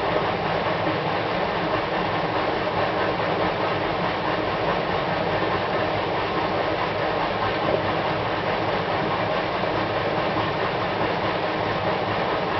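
Panasonic NA-VX73GL front-loading drum washing machine running with a steady, unbroken abnormal mechanical noise, the sign of an operating fault.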